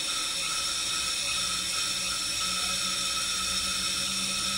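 Steady hiss from a gas-fired 1-inch scale Minnie live-steam traction engine standing with steam up, its flywheel not turning.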